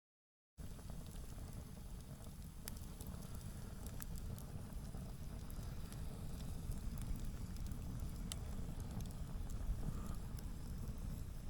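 Campfire burning, with a low steady rumble and scattered sharp crackles and pops. The sound starts abruptly about half a second in.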